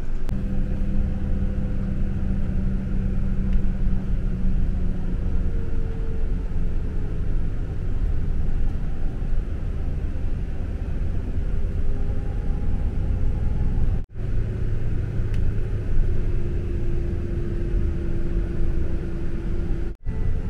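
Bus engine and road noise heard from inside the cabin: a steady low rumble with engine hums slowly shifting in pitch. The sound drops out briefly twice, about two-thirds of the way through and near the end.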